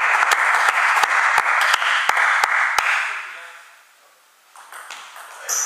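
Spectators applauding with individual hand claps standing out; the applause dies away about three seconds in. A sharp ringing tap follows near the end.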